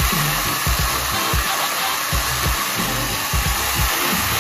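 Cordless battery chainsaws running at full speed and cutting through logs: a steady high whirring and cutting noise, under background music with a beat.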